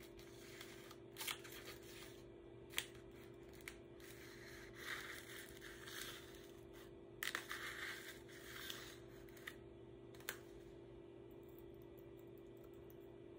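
Faint rustling and crinkling of a small plastic bag of pigment powder being handled while a small tool scoops powder out of it, with a few sharp ticks spread through. A steady low hum runs underneath.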